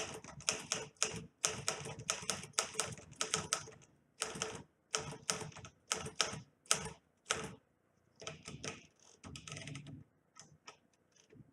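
Typing on a 1957 Remington Quiet-Riter manual typewriter: quick runs of sharp typebar strikes with short pauses between them, thinning to a few lighter clicks near the end.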